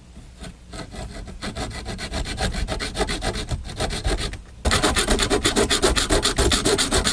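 Hand saw cutting through a soldered copper pipe joint in quick back-and-forth strokes, hard going through the solder. The strokes break off briefly about four and a half seconds in, then resume louder and quicker.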